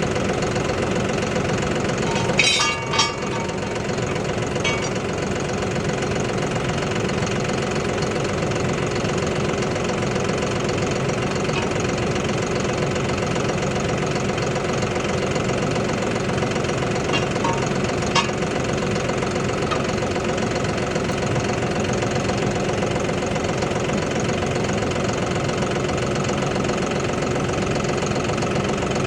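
An engine running steadily at idle. There are a couple of short knocks, one about two and a half seconds in and one near eighteen seconds.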